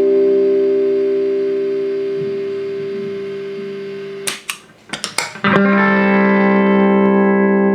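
Fender Stratocaster electric guitar played through a compressor pedal into a small Vox amp: a held chord rings out and fades slowly, then a few quick muted pick scratches, and a new chord struck about five and a half seconds in sustains at an even level.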